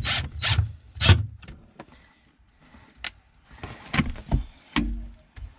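Cordless drill running in several short bursts, driving a screw, with clatter of tools and parts in between.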